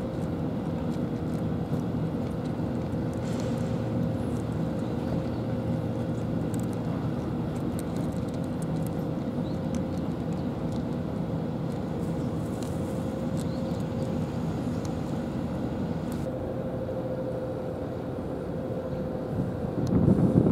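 Steady low machine hum with a constant held tone, with a louder low rumble near the end.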